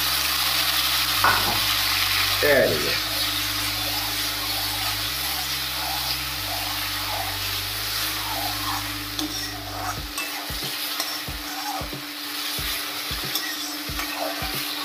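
Tomatoes and green chillies frying in hot oil in a pan, sizzling steadily, with a spoon stirring and scraping against the pan now and then.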